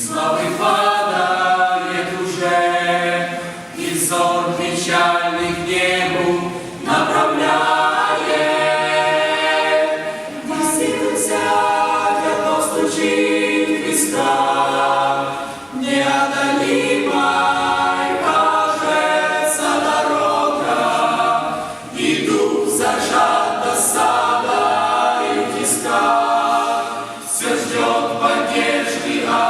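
Youth choir singing a cappella, several voices in harmony.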